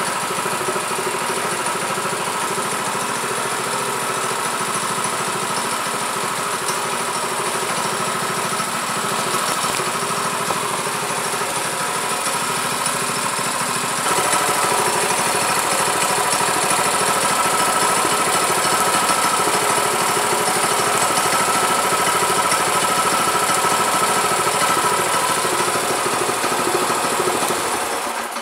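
Predator 212 single-cylinder four-stroke engine on a Mega Moto 212 minibike idling steadily, a little louder from about halfway, then cut off with the handlebar kill switch at the very end.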